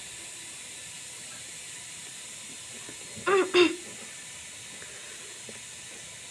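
Steady background hiss, broken about three seconds in by a brief two-part hum from a woman's voice.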